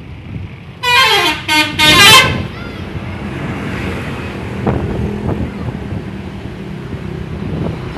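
Mahkota bus's melodic 'telolet' horn sounding three loud blasts in quick succession, its notes stepping down in pitch. The bus's engine and road noise rumble on after it.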